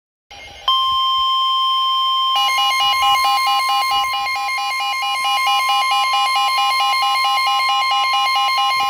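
Emergency alert attention tone: a loud steady high tone, joined about two seconds in by a rapidly pulsing second tone layered over it.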